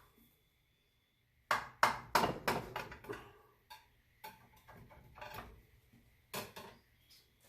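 Metal utensil knocking and scraping against a baking dish while a piece of baked cinnamon French toast is cut out and lifted: a quick run of about five sharp taps a second and a half in, then softer scattered clicks and one more knock near the end.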